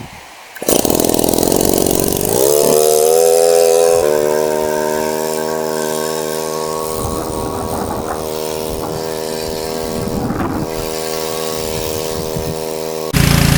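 Small gasoline engine of a water pump catching about a second in, rising in pitch for a second or two, then running steadily.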